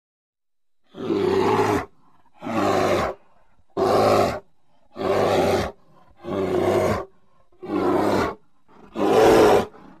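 Grizzly bear growling: seven short, loud growls, evenly spaced about one and a quarter seconds apart, starting about a second in.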